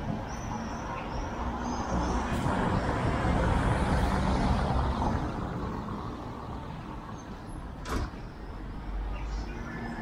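A vehicle in street traffic passes close by, its noise building up, peaking and dying away over a few seconds. A single sharp click follows near the end.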